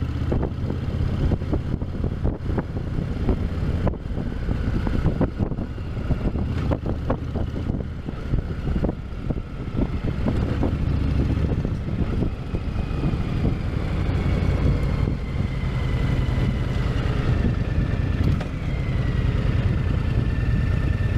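Honda VTX 1300's V-twin engine running through its stock exhausts: a steady low rumble that swells and eases a few times.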